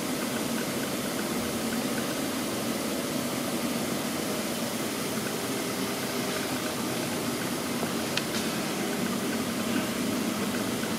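Steady hum and hiss of workshop ventilation, with a faint tick about eight seconds in.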